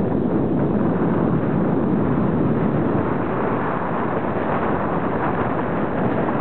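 Steady wind rush on the microphone of a camera riding on a moving folding bicycle, with the bike's rolling noise underneath.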